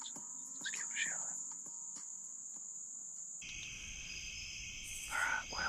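Insect chorus in the woods, a steady high-pitched drone with a few brief chirps over it. About three and a half seconds in, the sound cuts to a different chorus at two pitches with low rumble under it, and two short louder sounds come near the end.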